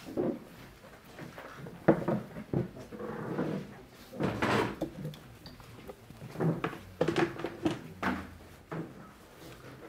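Chairs being moved aside: irregular knocks and scrapes, the sharpest knock about two seconds in.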